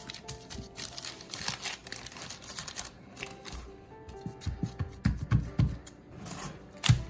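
Background music with held notes, over light clicks and handling noises from working the baking pan and its parchment paper; dull low thumps come in the second half.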